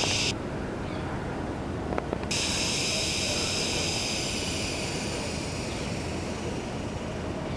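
Forest ambience: a high, steady insect drone over a constant low rumble. The insect sound cuts out suddenly just after the start and comes back suddenly about two seconds in.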